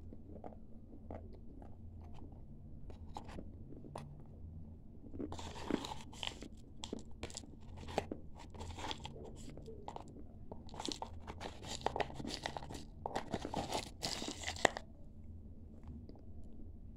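Dry clay chunks crunching and being chewed in the mouth. There are crisp crunchy bursts about five seconds in and again from about eleven to fifteen seconds, with softer chewing clicks in between.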